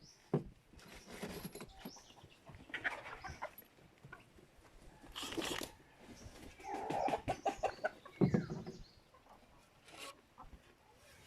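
Chickens clucking and calling while they feed, with a quick run of clucks about seven seconds in and a short falling call just after.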